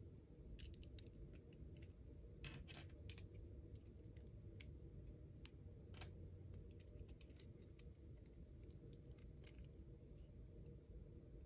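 Faint, scattered clicks and taps of small plastic LEGO bricks being pulled apart by hand and set down on a wooden table, over low steady room noise.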